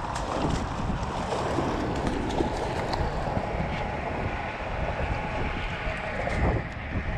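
Wind buffeting the microphone over small waves lapping on a rocky shoreline, in a steady rumbling rush.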